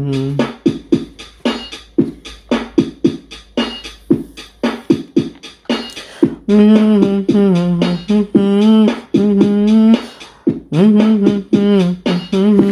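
Background music: a voice singing long, wavering notes over quick beats made with the mouth, like beatboxing.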